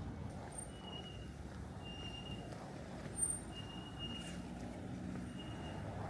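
Steady low rumble of road traffic, with a few short high-pitched chirps or beeps and one brief knock about three seconds in.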